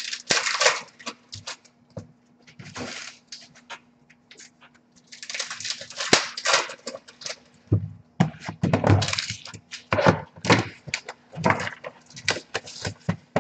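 Card-pack wrappers and cards being handled: irregular bursts of rustling, crinkling and tearing with small clicks, some heavier handling knocks in the second half.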